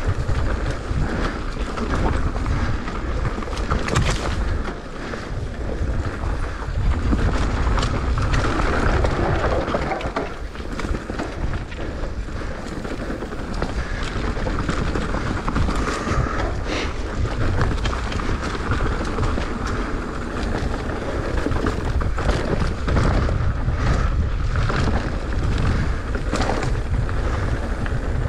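Wind buffeting the microphone of a mountain-bike action camera, with the bike rattling and the tyres crunching over a loose dirt trail; many short knocks and clicks come from the rough ground.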